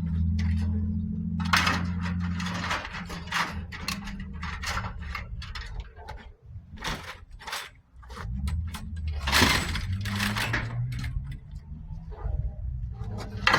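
Scrap metal being handled and loaded onto a truck bed: irregular metallic clanks, knocks and rattles, with a steady low hum underneath.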